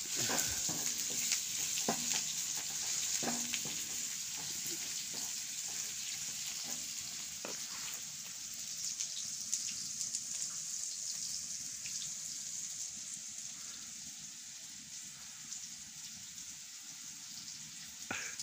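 Chopped green vegetables sizzling in oil in a frying pan on a camp stove, a steady high hiss that slowly fades. In the first several seconds a spatula scrapes and taps the pan while stirring, and there is one knock near the end.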